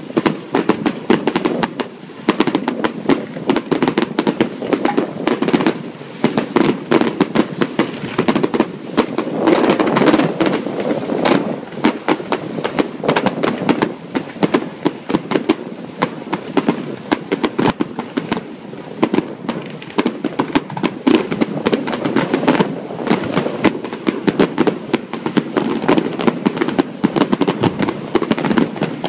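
Aerial fireworks display: a dense, unbroken barrage of shell bursts and crackling, many sharp bangs a second over a steady low rumble.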